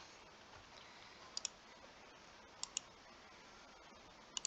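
Computer mouse clicking in quick pairs, three double clicks spaced about a second and a half apart, faint against a low hiss.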